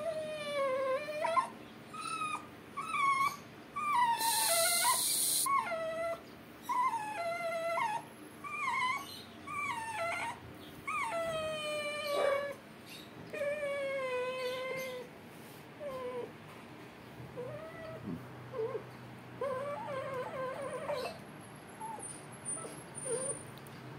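A sedated dog whimpering and crying again and again in high, wavering whines during ear-cropping surgery, the cries thinning out in the second half. A brief hiss sounds about four seconds in.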